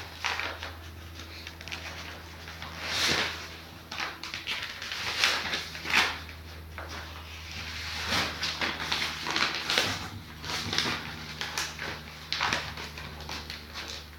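A sheet of paper crinkling and scraping as it is pressed and rubbed over a spray-painted board, in short irregular scratchy bursts over a steady low hum.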